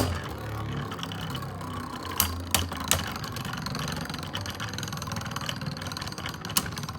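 Two Beyblade Burst spinning tops whirring as they spin in a plastic stadium, with a few sharp clicks about two to three seconds in as they strike each other.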